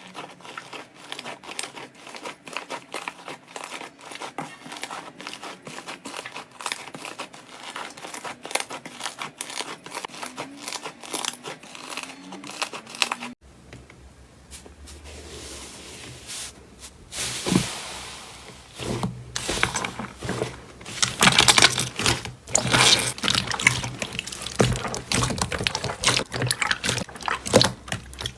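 Slime being squeezed and pressed by hand, with dense crackling clicks. About halfway through it changes suddenly to louder, irregular squishing and crackling.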